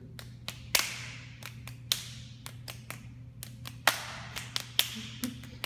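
Hands slapping: fists pounding into open palms again and again while rounds of rock-paper-scissors are counted out. The slaps are sharp and irregular, and a few land louder than the rest.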